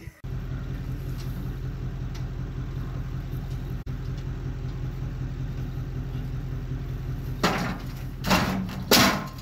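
Bobcat skid-steer loader's engine running steadily as the machine tips forward. Near the end come three loud, harsh surges of noise.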